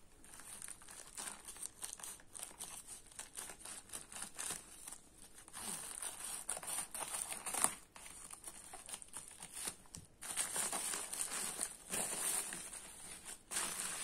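White plastic courier mailer bag crinkling and rustling in irregular bursts as it is handled, cut open with scissors and the box slid out of it.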